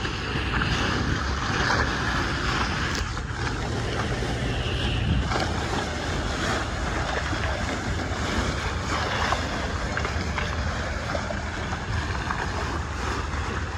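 Water rushing and splashing along the hull of a sailboat under way, with wind buffeting the microphone as a steady low rumble.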